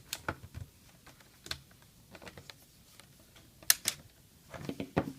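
Scattered clicks and taps of hands working on a laptop's plastic case, with a sharp double click just before the end and a short flurry of clicks near the end.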